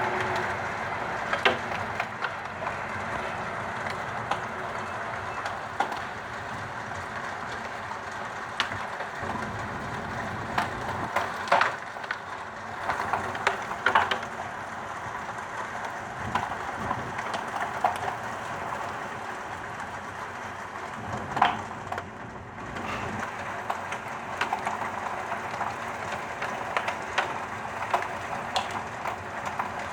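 Heavy downpour with hail: a steady rush of rain with hailstones striking in scattered sharp clicks and knocks.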